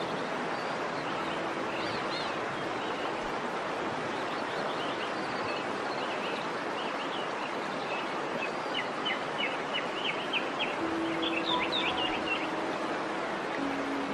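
Steady rush of a waterfall's falling water, with small birds chirping over it. The chirps come thicker in a quick run in the second half.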